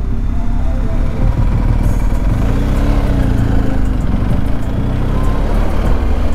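BMW motorcycle engine running under way, its pitch rising and falling as the rider slows and turns, with wind noise on the helmet-mounted microphone.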